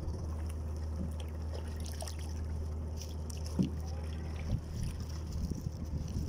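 Wooden paddle strokes in the water from a small outrigger canoe, over a steady low rumble, with a couple of short knocks about three and a half and four and a half seconds in.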